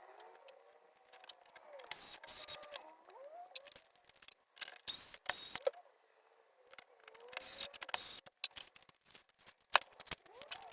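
Computer parts being handled during assembly: a run of sharp clicks and light knocks, irregular and coming in clusters, with the loudest click about two-thirds of the way through. Faint gliding tones sound underneath.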